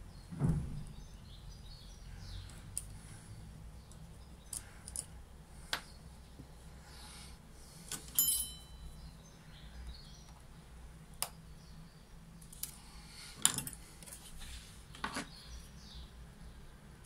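Small metal parts of a Saffa 10 lighter insert being handled and set down on a paper-covered bench: scattered clicks and light taps. The loudest come about half a second in, about eight seconds in, where a part clicks down with a brief metallic ring, and about thirteen seconds in.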